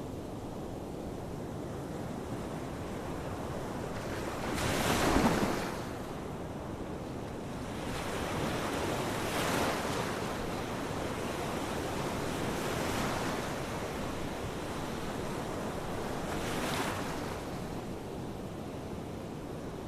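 Ocean waves breaking and washing on the shore, a continuous surf rush that swells with each wave: the loudest break about five seconds in, and softer ones near ten, thirteen and seventeen seconds.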